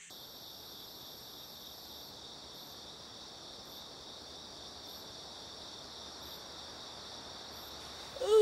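Chorus of crickets chirring steadily at a high pitch, with a brighter chirp repeating about once a second.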